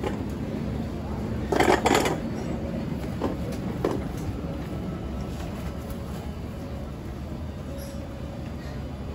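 Steady low rumble of street-market background noise with faint voices, broken about a second and a half in by a brief clatter and then two lighter knocks.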